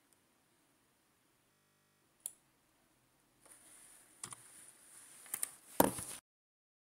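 Computer mouse clicking, about five single sharp clicks spread over a few seconds, with faint hiss between them and the loudest click near the end. The sound then cuts off abruptly to dead silence as the screen recording is stopped.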